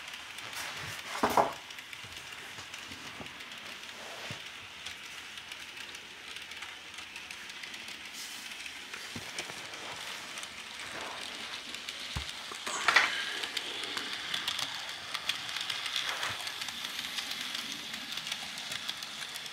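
Bachmann N-scale model train running on its track: a steady faint hiss of motor and wheels with scattered small clicks. It grows louder from about thirteen seconds in, with a sharper click, as the coaches pass close.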